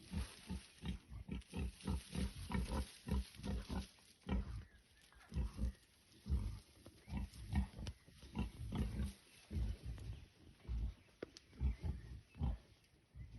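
Wild boar grunting over and over in short, low grunts, about two to three a second, with brief pauses between runs.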